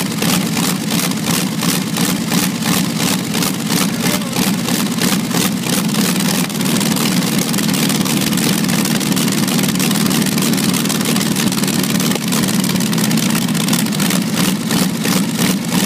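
Original Curtis Smith V-12 aero-type engine of the 1918 Miss Detroit III hydroplane idling through open, unmuffled exhaust stacks, a loud, steady train of firing pulses.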